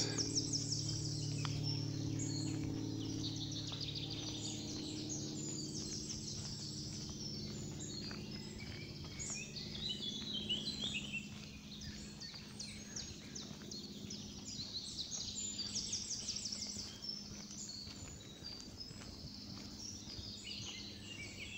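Woodland birds singing, many short chirping phrases overlapping throughout, over a steady low hum that fades over the first ten seconds or so, with faint footsteps on a paved path.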